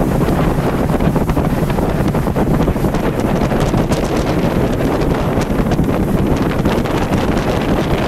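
Steady wind buffeting the microphone on a motorboat under way, with the rush of water from the moving hull underneath.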